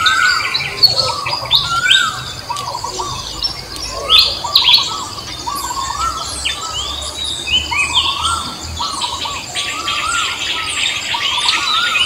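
Several forest birds singing at once: one repeats a short whistled phrase that rises and falls, over many quick higher chirps and a steady high buzz.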